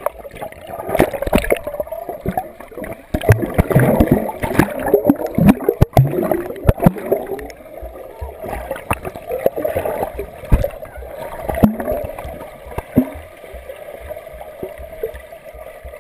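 Pool water heard from under the surface: muffled gurgling and sloshing as a swimmer in a float ring moves their arms and legs, with many sharp knocks and splashes, busiest from about three to seven seconds in and calmer after.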